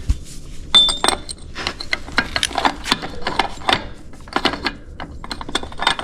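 Small metal-on-metal clicks and clinks of hand tools working the front hub's bearing lock nut, a few a second and irregular, with one brief ring about a second in.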